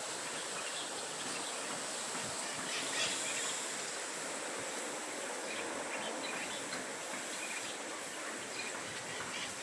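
Outdoor nature ambience: a steady hiss with scattered short bird chirps and a faint, steady high insect drone.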